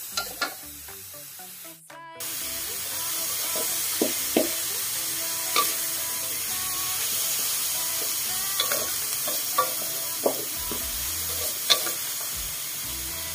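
Pumpkin shoots, minced pork and carrot sizzling in an aluminium wok as they are stir-fried with a wooden spatula. The spatula scrapes and knocks against the pan now and then. The sizzle gets louder about two seconds in.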